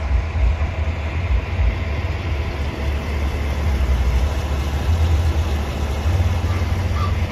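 Wind buffeting the microphone as a low, uneven rumble, over a steady rush of noise from the flowing river.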